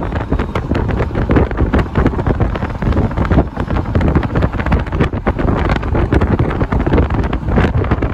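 Loud wind buffeting the microphone in a moving car, in irregular gusts, over a steady low rumble of road noise.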